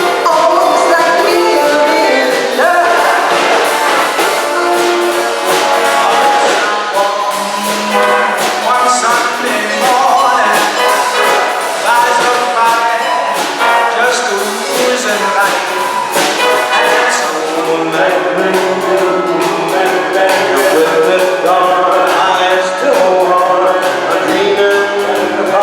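A big band playing a swing number: brass section with trumpets and trombones over a steady cymbal beat.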